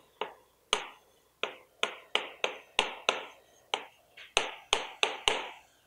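Chalk on a blackboard while writing: a quick, uneven run of sharp taps, one for each stroke of the chalk.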